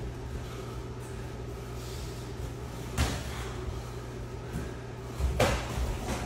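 Kickboxing sparring strikes landing on padded gloves and shin guards: a sharp thud about three seconds in and a stronger flurry of hits about five and a half seconds in, over a steady low hum.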